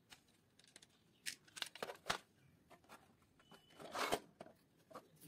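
Hard plastic parts of a toy coin bank being handled and fitted together: scattered clicks, taps and short scrapes, with a longer scraping rustle about four seconds in.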